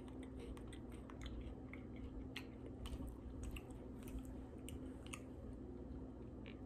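A person chewing a bite of Kit Kat wafer bar: faint, irregular crisp crunching clicks.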